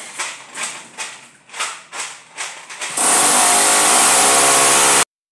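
Corded electric drill boring into a wall, first in short bursts about two to three a second, then running steadily and loudly for about two seconds before cutting off suddenly.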